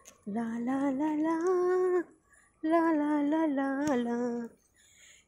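A woman singing a wordless tune in two long phrases, holding notes, with a short pause between them.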